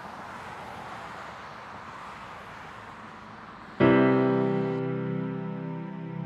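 Faint steady background hiss, then about two-thirds of the way in a piano chord is struck and held, ringing on as background score.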